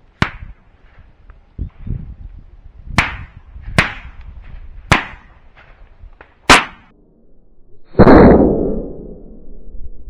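Shotgun shots during a dove hunt: five sharp reports spread over the first seven seconds, then a much louder, closer blast about eight seconds in that trails off over a second or two.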